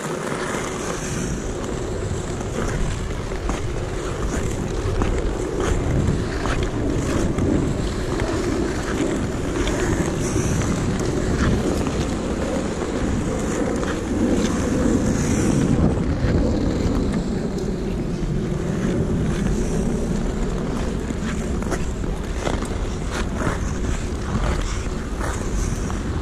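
Ice skate blades scraping and gliding over natural lake ice in repeated strokes, with wind noise on the microphone.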